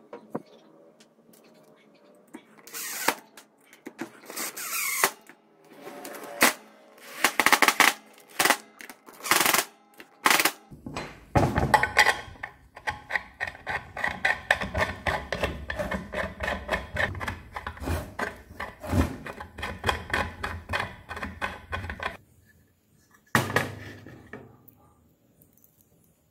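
Cordless drill/driver running in several short bursts as it drives screws through a steel flange into a wooden board, followed by a longer stretch of dense, rhythmic clatter and one more short burst.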